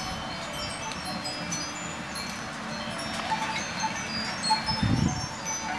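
Wind chimes tinkling, with many short, high ringing notes at irregular intervals, over a steady low background. A brief low rumble comes about five seconds in.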